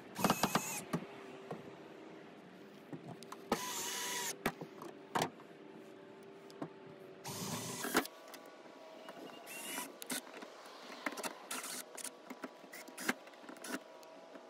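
Cordless drill/driver driving screws to fasten a roof vent fan's flange down, run in short whining bursts of under a second: near the start, about three and a half seconds in, and about seven and a half seconds in, with shorter bursts and clicks after.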